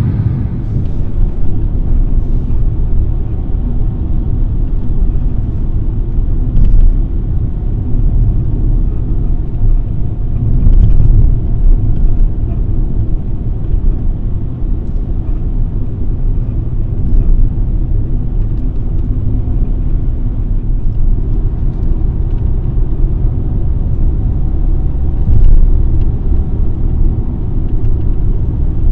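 A car driving, with a steady low road rumble.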